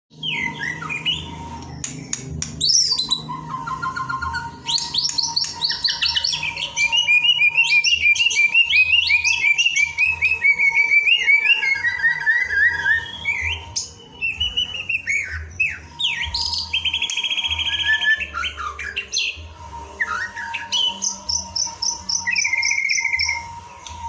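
White-rumped shama (murai batu) singing a long, varied song of clear whistles, sliding notes, fast repeated notes and rapid trills, over a faint steady tone.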